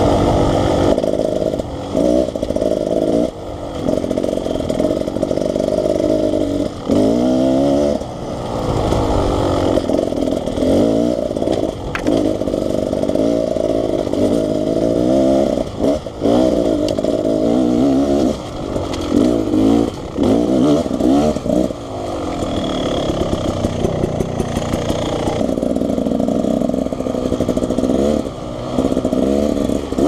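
Beta Xtrainer two-stroke dirt bike engine revving up and down as the bike is ridden along a dirt trail, the revs rising and dropping back again and again.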